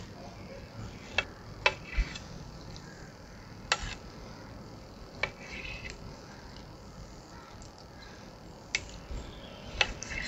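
Kitchen knife cutting raw beef liver on a granite slab, the blade striking the stone in sharp, irregular clicks every second or two.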